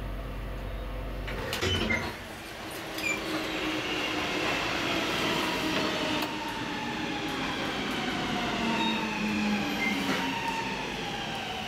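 A 1982 KONE hydraulic elevator's steady low hum cuts off about a second in, followed by a clunk or two. Then a metro train slows into the station with a long whine that falls slowly in pitch.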